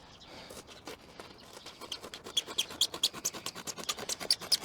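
Sound-deadening mat being cut into a strip: a fast, even run of short, scratchy clicks, about six a second, growing louder from about two seconds in.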